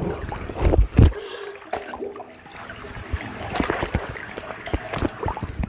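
Bathtub water splashing and sloshing as a dinosaur hand puppet is moved through it, with two heavy thumps about a second in and scattered small splashes and drips after.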